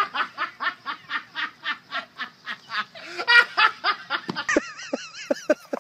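A person laughing hard in a rapid, even run of 'ha's, about four to five a second. About four and a half seconds in, a higher, wavering pitched sound takes over.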